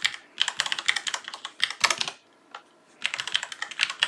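Typing on a computer keyboard: quick runs of keystrokes, with a pause of about a second in the middle.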